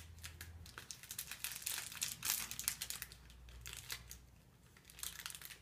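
Clear plastic treat bag crinkling as it is handled and slipped over a cake pop: a run of irregular small crackles.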